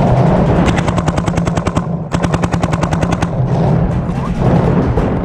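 Paintball markers firing rapid strings of shots: two fast bursts of about a second each, close together, in the first few seconds.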